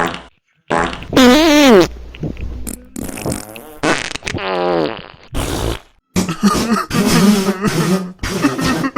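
A string of fart sounds edited back to back, each cut off abruptly: several drawn-out ones with a wobbling, warbling pitch, then, after a brief silence about six seconds in, a quick run of short sputtering ones.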